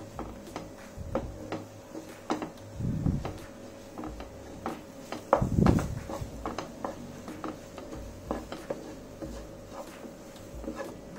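Wooden spatula stirring and pressing crumbly gulab jamun dough in a nonstick frying pan: irregular soft scrapes and knocks of wood against the pan, the loudest about five and a half seconds in.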